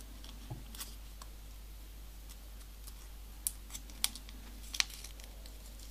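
Small paper origami module being folded and creased between the fingers, giving a few faint, sharp paper crackles and ticks, most of them in the second half.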